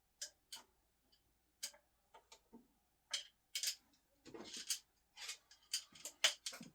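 Steel screwdrivers clicking and clinking, an irregular run of a dozen or so sharp, bright strikes, with a short rattle about four seconds in.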